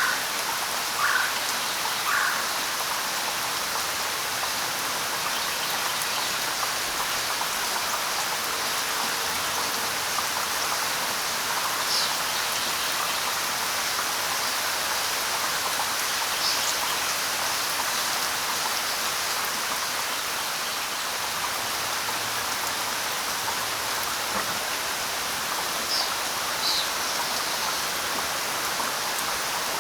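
Steady light rain falling on leaves and surfaces, an even hiss with scattered drops. A few brief high bird chirps stand out now and then.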